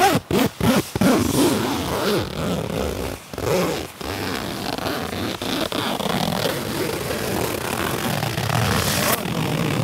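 Nylon tent fabric rustling and a zipper rasping, with a few knocks in the first second.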